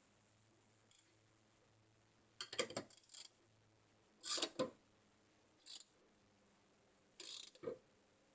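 Short bursts of light clicks and clinks from hand work on a BMX bike being assembled: five clusters spread over several seconds, with the loudest just past the middle.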